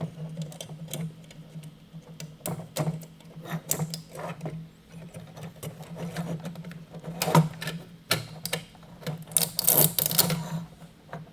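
Irregular clicks, taps and rattles of hands working a thermostat cable into the port of a plastic pump controller housing, with a denser scraping rustle about nine to ten seconds in, over a low steady hum.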